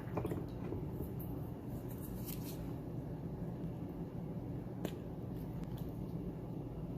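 Dual plasma arc lighter's electric arc running steadily, with a few short clicks.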